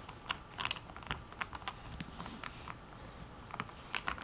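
Small plastic Rubik's Cube It pieces clicking and clattering as they are handled and fitted together: irregular sharp clicks, several close together at the start, sparse in the middle and a few more near the end.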